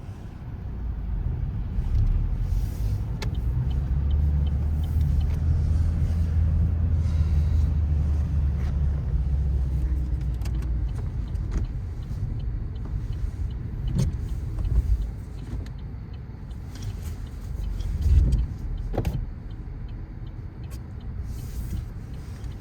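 Low motor-vehicle rumble that swells a couple of seconds in, holds for several seconds, then eases, with a couple of short knocks later on.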